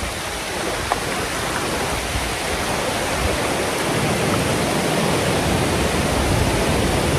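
Steady rush of a fast mountain river at a crossing point, a continuous even noise with one brief click about a second in.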